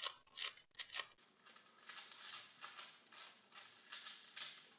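Faint plastic clicking and scraping as the layers of a crazy 3x3x2 twisty puzzle are turned in quick succession while it is scrambled. The turns come as a string of short rasps, with a few in the first second and a faster run from about two seconds in.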